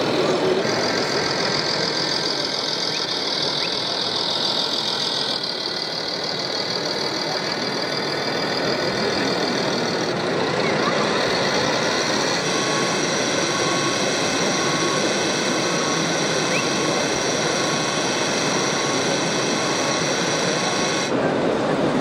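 Radio-controlled model skip-loader truck's electronic diesel-engine sound running steadily, over the din of a busy exhibition hall. A faint beeping repeats at a regular pace through the second half.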